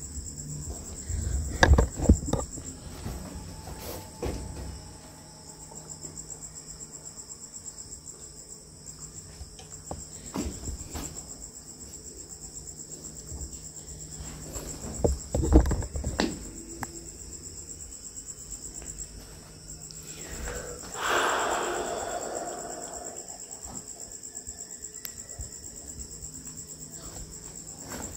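Crickets chirping steadily in a high, rapidly pulsing trill. Over them come a few loud knocks and thumps about two seconds in and again around fifteen seconds, and a short rustling burst a little after twenty seconds.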